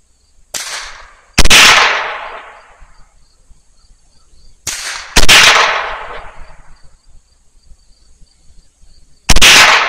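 Smith & Wesson M&P 15-22 semi-automatic .22 LR rifle firing Aguila rounds: three single shots about four seconds apart, each ringing out for over a second. A fainter sharp crack comes about half a second before each of the first two shots.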